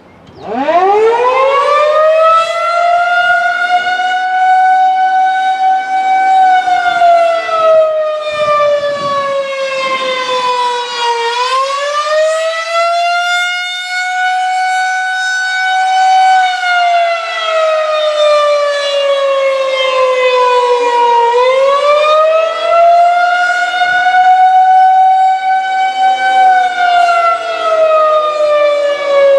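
Federal Signal 2001-130 rotating electromechanical warning siren starting up sharply less than a second in and then wailing, its pitch rising quickly, holding, and sliding down again in cycles of about ten seconds. The rise and fall marks the Attack signal, not the steady Alert tone.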